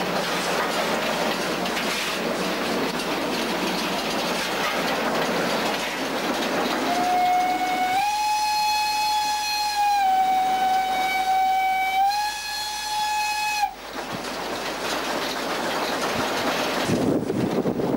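Steam locomotive's whistle blowing one long blast of about six seconds, starting about seven seconds in; its pitch shifts slightly a couple of times before it cuts off suddenly. Around it is the steady running noise of the locomotive and its wheels on the rails, heard from the footplate.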